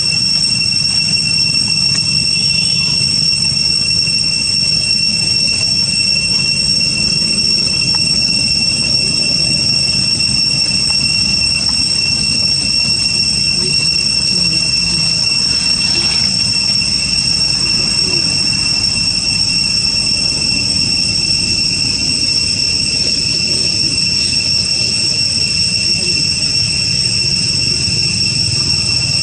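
A steady high-pitched whine that holds one pitch with a fainter overtone above it, over a constant low rumble.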